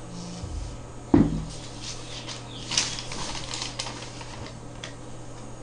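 Handling noise from a phone held in the hand: one sharp knock about a second in, then scratchy rustling and light clicks.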